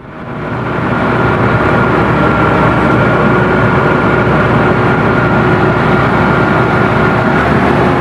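Komatsu bulldozer's diesel engine running steadily, heard from the operator's seat, with a steady high whine over the engine noise. The sound fades in over the first second.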